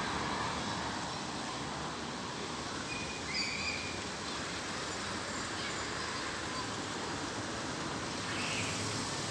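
Outdoor city-square ambience: a steady hum of distant traffic and people, with a few short high-pitched calls about three seconds in and again near the end.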